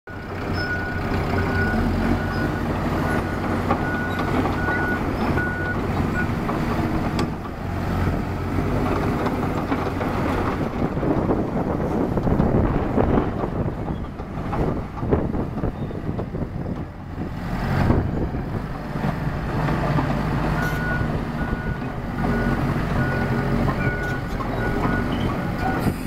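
CAT D3K LGP crawler dozer's diesel engine running as the machine drives about on its tracks. Its backup alarm beeps steadily in the first few seconds and again from about twenty seconds in, as the dozer reverses.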